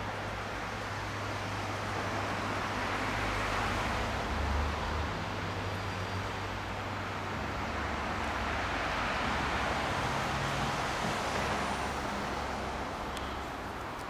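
Road traffic noise, swelling twice as vehicles pass, over a low steady hum.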